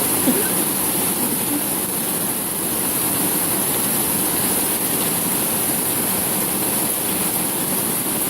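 Intense rain pouring down in a steady, even hiss.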